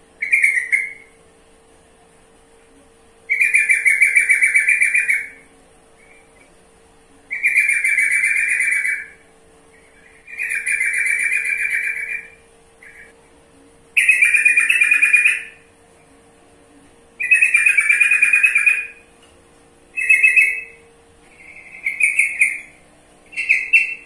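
Yellow-vented bulbul (trucukan) in a cage giving repeated loud chattering call bouts, each about one and a half to two seconds long and coming every three seconds or so. The last few, near the end, are shorter.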